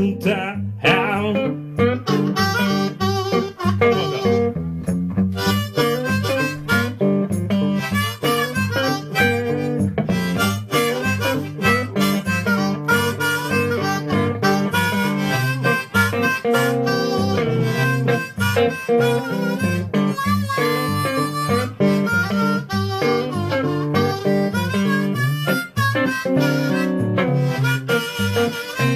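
Blues harmonica solo, played with the harp cupped against a microphone, over steady guitar accompaniment.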